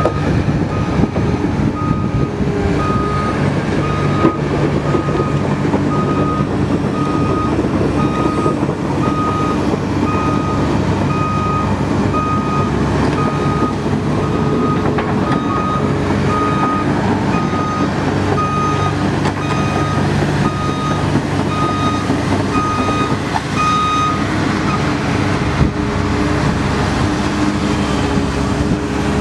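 Komatsu PC300LC excavator's six-cylinder turbo diesel engine running steadily while its travel alarm beeps in a regular rhythm as the machine tracks; the beeping stops about 24 seconds in and the engine runs on.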